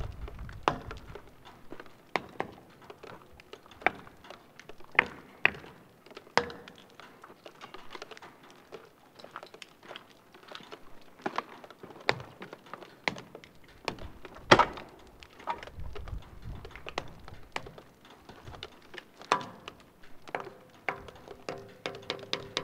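Sharp percussive hits at irregular intervals, made at a concrete building wall and picked up from across an open lot. The loudest hit comes a little past halfway.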